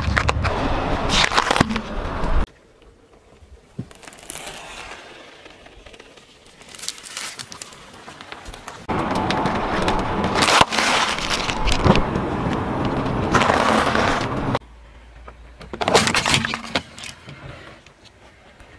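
A car tyre rolls slowly over objects on asphalt and crushes them, in separate takes that cut off abruptly. First a vegetable stalk crunches, then a sealed bag of tortilla chips crackles and crunches for several seconds, with shorter cracks near the end.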